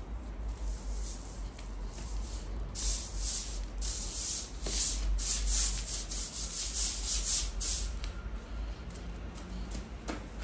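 Soft grass broom sweeping across a woven plastic floor mat: quick, short swishing strokes, about two a second, busiest through the middle and then trailing off.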